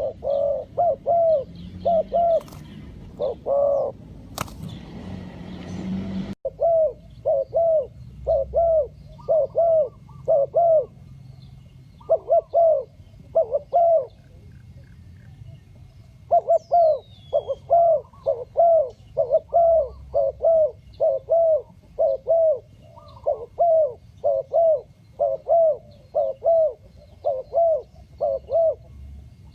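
Spotted dove calling: short cooing notes repeated about two a second in runs, with brief pauses between runs. A burst of hiss with a sharp click comes in around 4 to 6 seconds and cuts off suddenly.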